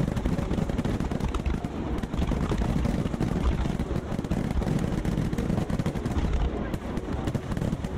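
Fireworks barrage: many shells firing and bursting in rapid succession, a dense, unbroken run of booms and crackles.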